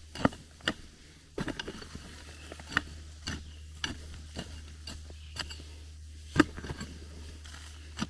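Pickaxe chopping into packed dirt and gravel, loosening soil for a trail step: short strikes at about two a second, the loudest about six and a half seconds in.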